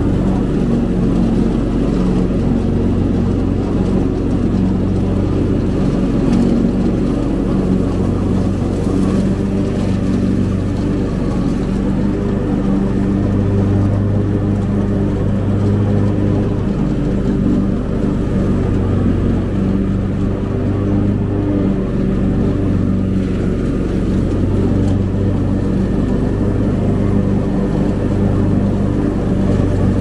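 Cub Cadet riding mower's engine running steadily at working speed while cutting pasture grass, with a low even drone that barely changes.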